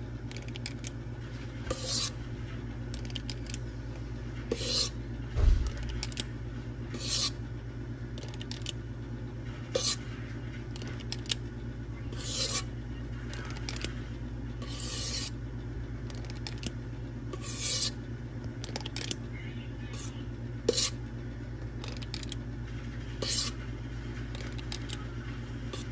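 Small squeeze-release ice cream scoop scraping thick cheesecake filling out of a mixing bowl and releasing it into cups: short scrapes every two to three seconds, with one louder knock about five seconds in, over a steady low hum.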